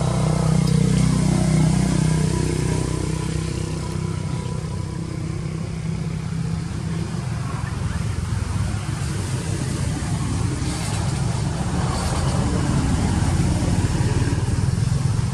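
Steady low engine rumble, loudest in the first few seconds and then holding at a lower level.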